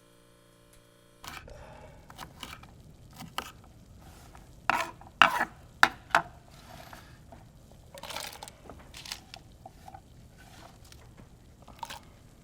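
A steady electrical-sounding hum that cuts off about a second in, followed by an irregular run of handling sounds: scrapes, rustles and sharp clicks and clatters, the loudest bunched around the middle.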